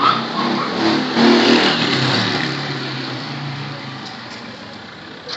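Homemade washing machine's electric motor running, with a steady hum and churning noise that is strongest about a second in, then gradually fades.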